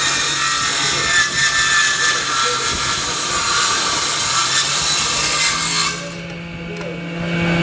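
Power tool cutting wood, a dense steady cutting noise over a motor hum. About six seconds in the cutting stops and only the motor's hum is left, then the cutting starts again near the end.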